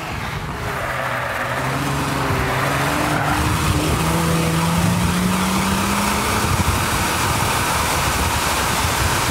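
2001 Volkswagen Jetta VR6's engine pulling under hard acceleration, its note rising slowly for several seconds, over a steady rush of tyre and road noise that takes over near the end.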